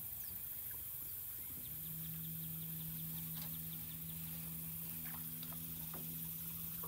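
Small boat's electric trolling motor switching on about a second and a half in and running with a steady low hum.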